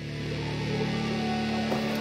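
Background rock music with electric guitar, starting abruptly.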